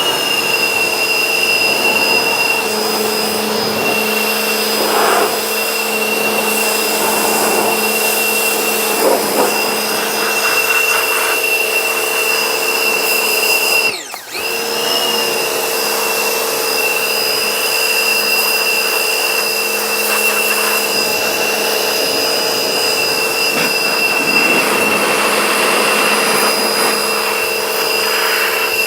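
Pressure washer running with a steady high-pitched whine over a hissing spray, cutting out for a moment about halfway through and then starting again.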